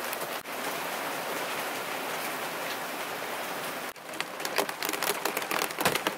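Heavy rain pouring in a steady hiss. About four seconds in, the sound changes to closer, sharper raindrops hitting a surface.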